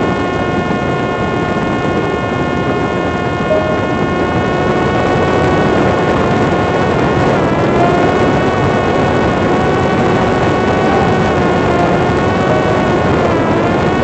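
Parrot Disco fixed-wing drone's electric motor and pusher propeller running at about half power with a steady whine, over a rush of wind on the microphone during a fast dive. The whine wavers slightly in pitch in the second half.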